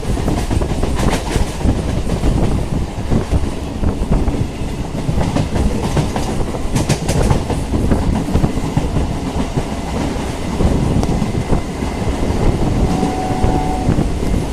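Suburban electric local train running along the line, heard on board: a steady rumble of wheels on rails with the clickety-clack of rail joints, and a few sharp clicks and knocks here and there.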